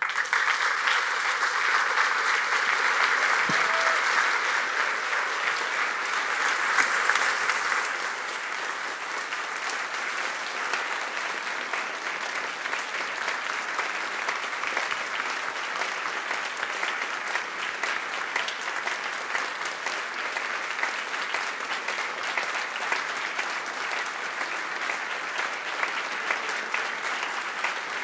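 A large audience applauding, loudest for about the first eight seconds and then settling into steady clapping.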